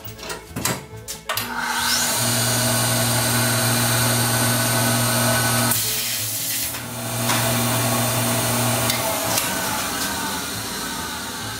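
Abrasive blast cabinet running: a loud steady hiss with a motor hum under it, starting after a few clinks about a second in. It breaks off briefly about halfway and resumes. Near the end the hum stops and a softer hiss carries on.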